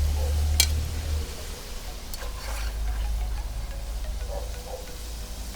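Frozen French fries deep-frying in hot oil in a kazan, a steady sizzle, under a low rumble that is loudest for the first second or so. A single sharp click about half a second in.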